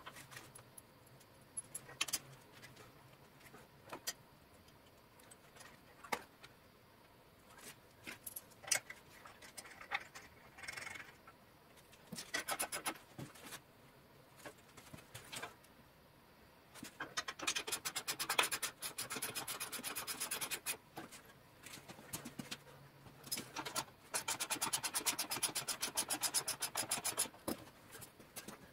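Ratchet wrench clicking rapidly in two runs of a few seconds each, among scattered taps and clanks of tools and metal parts.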